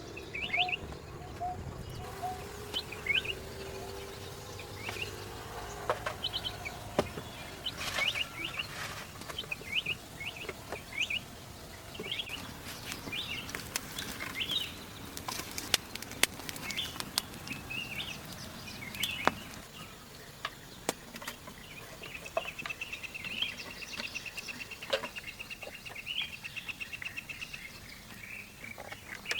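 Wild birds chirping with short, scattered calls, and a rapid trill in the second half. Occasional sharp clicks and knocks sound among them.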